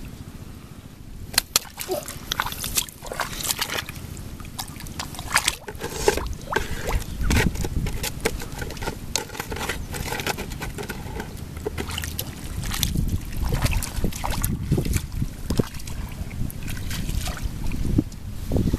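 Hands splashing and sloshing in shallow muddy water, groping for fish, in many short irregular splashes. A steady low rumble of wind on the microphone runs underneath.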